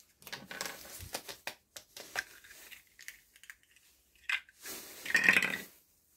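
Small steel tooling, an ER collet and an end mill, being handled by hand: a run of light clicks and clinks, then a louder scraping rustle about five seconds in.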